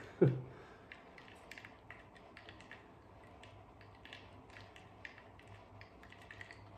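Crushed ice in water being stirred in a plastic bowl with a pipe temperature clamp: faint, irregular small clicks and taps of ice knocking against the bowl and clamp. A brief loud falling tone sounds about a quarter second in.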